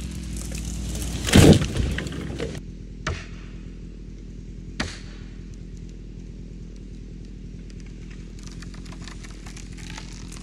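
A felled conifer crashing to the ground about a second and a half in, with a short clatter of branches after the impact, then two sharp cracks of snapping wood a couple of seconds apart. A chainsaw idles steadily throughout.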